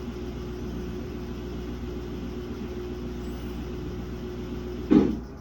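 Samsung WA50R5200AW top-load washing machine spinning a single pair of pants, a badly unbalanced load, with a steady hum. About five seconds in there is a loud thump and the spin cuts off, the machine stopping again.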